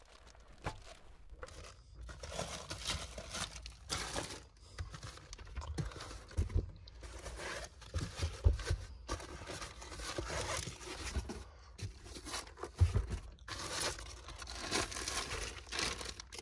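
Plastic zip-top bags and plastic-wrapped packaging crinkling and rustling as they are handled and stowed, in irregular bursts with a few dull bumps.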